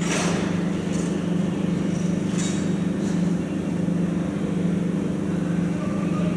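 A large engine running steadily with a constant low hum. Short hissing sounds come right at the start and again about two and a half seconds in.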